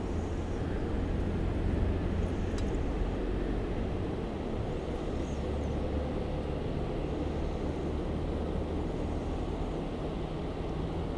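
Steady low motor hum, with a faint click about two and a half seconds in.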